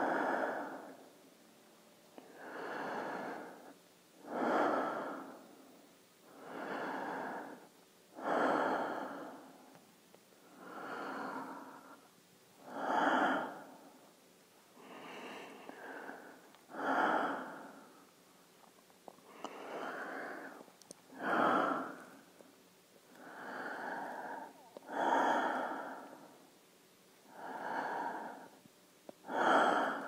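Slow, regular breathing through a mask, about one breath every two seconds, alternating a stronger breath with a softer one. The breaths are rushing and hollow, with no deep bass.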